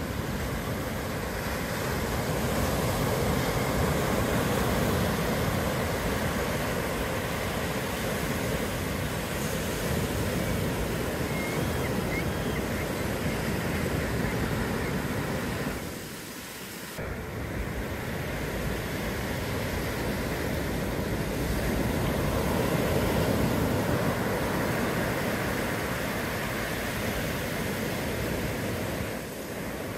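Ocean surf breaking and washing in, in long surges that rise and ease, with a brief lull about halfway through and again near the end.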